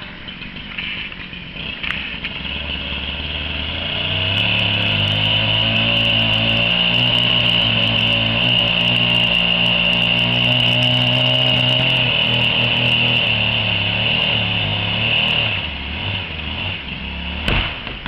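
Chainsaw running at high speed with a steady pitch, cutting. It gets louder about four seconds in and eases off near the end, and a single sharp crack comes just before the end.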